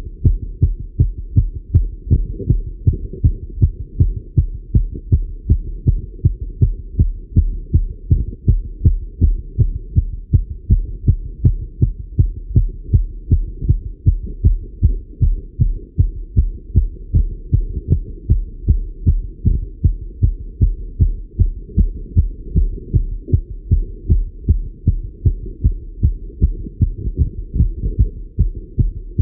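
A man's fast heartbeat heard through a Littmann stethoscope: rapid, even, low thuds, the heart rate raised by cycling.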